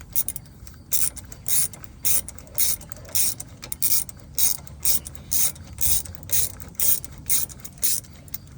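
Harbor Freight palm ratchet clicking in quick, short back-and-forth strokes, about three a second, as it turns out a brake caliper bolt.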